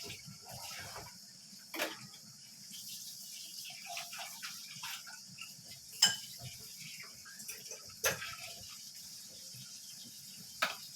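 Kitchen utensils clinking against pots or dishes: four sharp clinks, the loudest about six seconds in, with quieter scattered knocks and rattles between them.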